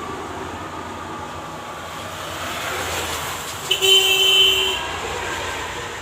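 A horn honks once, about four seconds in, lasting about a second, over a steady background of traffic noise.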